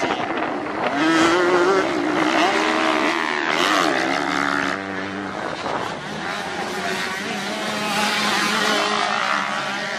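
Motocross bike engines running hard on the track, several at once, their pitch rising and falling as the throttle opens and closes.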